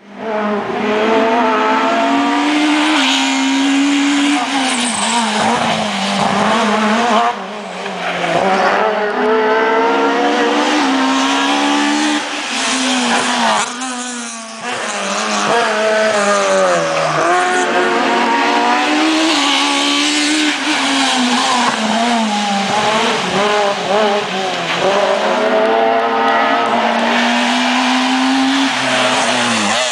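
Rally cars racing past at full throttle, their engines revving high and climbing in pitch, then dropping at each gear change, again and again as the cars go by one after another.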